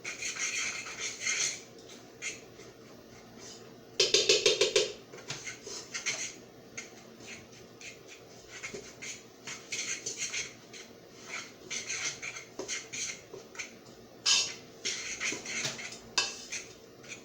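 Metal fork scraping and tapping in a mixing bowl in repeated uneven strokes, working margarine into a coarse brown-sugar crumble. A louder flurry of fast rattling strokes comes about four seconds in.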